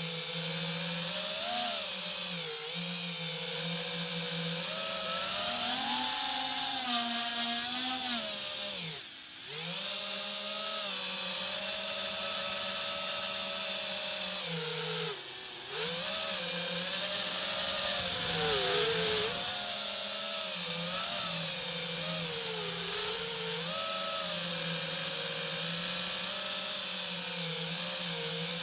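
FPV quadcopter's brushless motors and propellers whining, the pitch rising and falling with the throttle. Twice the pitch drops sharply and briefly, about nine and fifteen seconds in, as the throttle is cut and picked up again.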